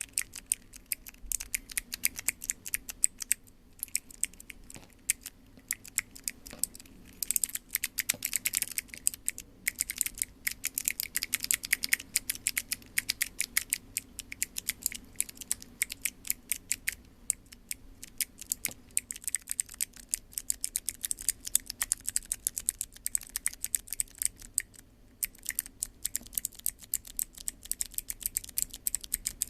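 Keyboard-key fidget toys being pressed over and over: rapid, sharp clicking like mechanical keyboard switches, many clicks a second with brief pauses.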